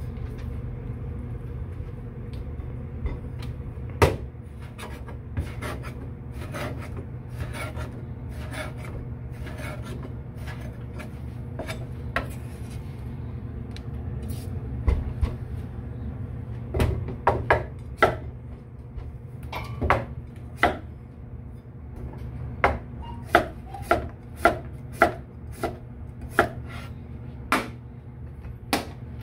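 Kitchen knife working through a humpback red snapper on a cutting board: scraping with many sharp knocks of the blade against the board, coming in quick runs in the second half.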